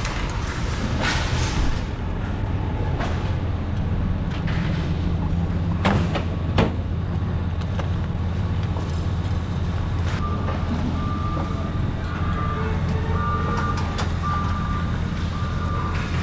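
A truck engine running steadily, with a few clanks. From about ten seconds in, a vehicle's reversing beeper sounds repeatedly.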